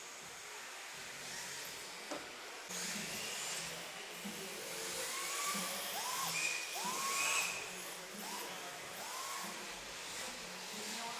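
A 13.5-turn brushless electric motor in a 1/10 RC drift car whining up in pitch as the car accelerates, about five throttle bursts in a row from about four seconds in, over a steady hiss.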